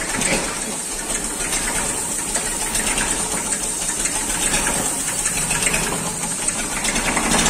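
Massey Ferguson 35 tractor engine running steadily at idle, close up.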